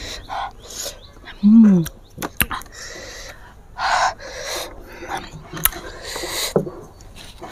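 A woman's short hummed 'mm' with a pitch that rises and falls about a second and a half in, then two sharp breaths about four and six seconds in, with a few small clicks between. They are her reactions to very sour green mango eaten with chilli sauce.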